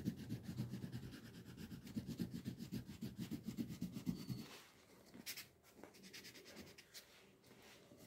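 Faint, rapid back-and-forth strokes of a blue colour rubbing on paper while shading a background. The strokes stop about four and a half seconds in, leaving only a few faint ticks.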